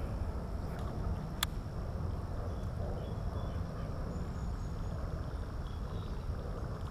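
Steady low rumble of outdoor noise on the microphone of a camera mounted on a drifting kayak, with one sharp click about a second and a half in.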